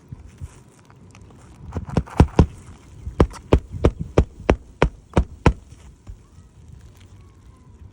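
Hammer blows on an asphalt-shingle roof: a few sharp strikes about two seconds in, then a steady run of about eight strikes at roughly three a second.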